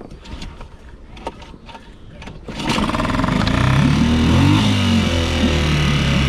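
Mercury 3.5 hp outboard motor being pull-started: a few light clicks and knocks, then it catches about two and a half seconds in and runs, its pitch wavering up and down before settling into a steadier run.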